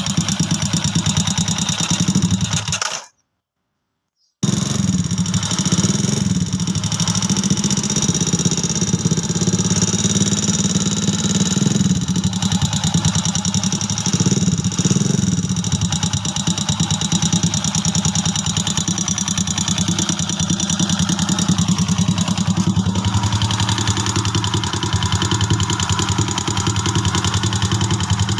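Small four-stroke motorcycle engine running steadily with a fast, even mechanical knocking and ticking, the noise the owner puts down to piston slap, rocker arm and cam bearing wear. The sound cuts out completely for about a second and a half near the start.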